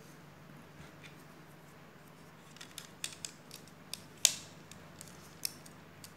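Plastic LEGO plates clicking as they are pressed onto studs by hand: a run of small clicks from about two and a half seconds in, the loudest sharp snap a little past four seconds, and one more click near the end.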